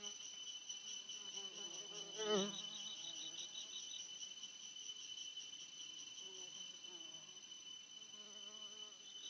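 Insects chirping steadily in a high, fast-pulsing drone, with one brief louder call a little over two seconds in.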